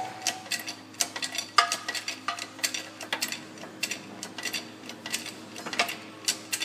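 Irregular sharp metallic clicks and ticks, several a second, as a hydraulic shop press pushes the old rear wheel bearing out of a 2002–2005 Ford Explorer rear knuckle, over a low steady hum. The bearing shell has been shocked loose beforehand and is moving out freely under the press.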